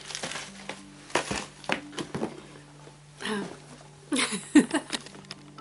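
Packaging and cardboard rustling and crinkling as a shipping box of cosmetics is unpacked by hand, in a string of short scrapes and crackles, the loudest about four and a half seconds in.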